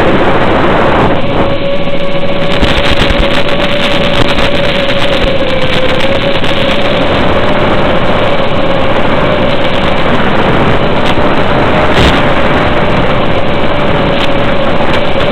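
Electric motor and propeller of an FPV aircraft running at a steady cruise throttle, a constant whine with a heavy rush of airflow noise, heard through the aircraft's own low-fidelity onboard audio.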